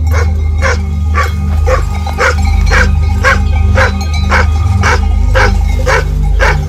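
Anatolian shepherd dog barking steadily, about two barks a second: guard barking at an intruder near the flock. Background music with a low steady drone runs underneath.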